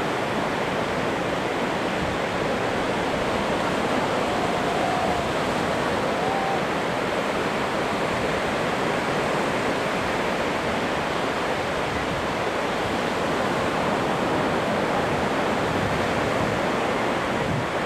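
Steady rush of surf breaking and washing in the shallows, a continuous even roar of water.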